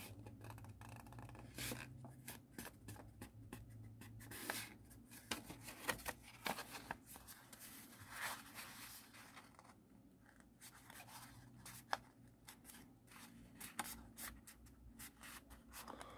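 Origami paper rustling and crinkling in the hands as it is folded and creased, in short, soft, irregular scrapes and crackles.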